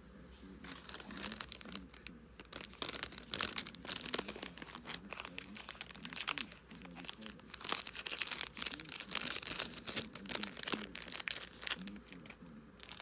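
Clear plastic packaging crinkling and rustling as it is handled, a steady run of irregular crackles that eases off near the end.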